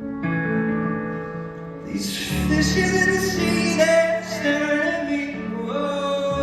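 Live music: sustained instrumental chords, with a singing voice coming in about two seconds in.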